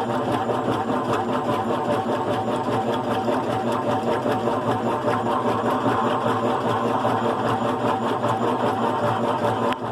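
GE Profile top-load washing machine, fitted with a single-speed motor, running a wash cycle: a steady motor hum and mechanical whir with a fast, even ticking.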